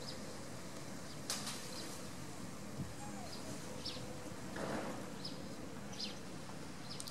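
Outdoor background: a steady low hum with several short, high chirps scattered through it, a sharp click a little over a second in, and a brief burst of noise near the five-second mark.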